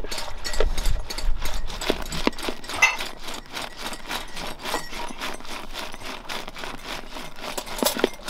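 A wooden twirling whisk, spun back and forth between the palms in a bowl of milk and whipping it to froth: quick, even swishing and rubbing strokes, several a second.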